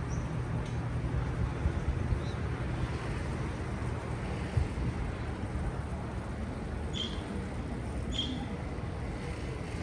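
Steady low rumble of road traffic, with a few short high chirps from parakeets; the clearest two come near the end, about a second apart.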